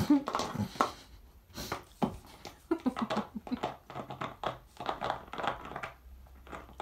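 A doodle dog chewing an empty plastic water bottle: the thin plastic crackles and crinkles irregularly under its teeth and paws.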